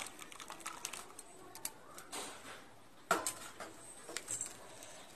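Hot agar agar and tender coconut mixture poured from a pan into a steel tray: quiet splashing with scattered light clicks and taps.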